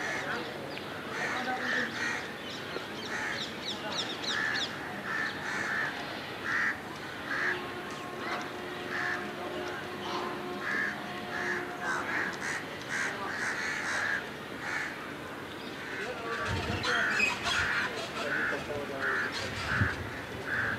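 Crow cawing over and over in short calls, with small birds chirping high above it. A few low thuds come near the end.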